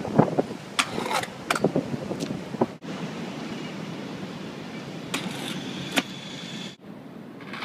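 Freestyle scooter clattering on concrete pavement: several sharp clacks of the deck and wheels hitting the ground and rattling, over steady city traffic noise.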